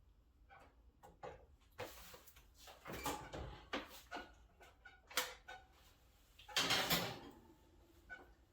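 Kitchen handling noises: scattered clicks and knocks, with a longer, louder clatter about six and a half seconds in.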